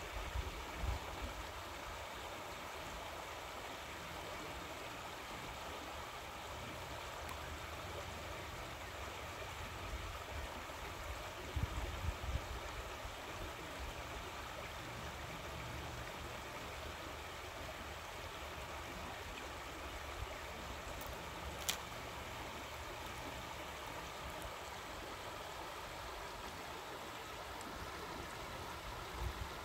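Steady rushing of running water from a stream, with a few low bumps near the start and again midway, and one sharp click about two-thirds of the way in.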